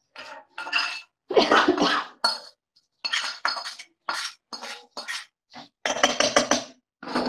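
A metal spoon scraping and clinking against a dark wok-style pan, emptying a cooked chili paste into a mixer-grinder jar. The strokes come in irregular bursts, loudest about a second and a half in, with a quick run of taps near the end as the last of the paste is knocked off.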